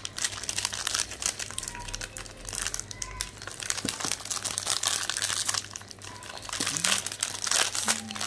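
Clear plastic packaging bag crinkling and rustling in a run of irregular crackles as an electrical switch is unwrapped by hand.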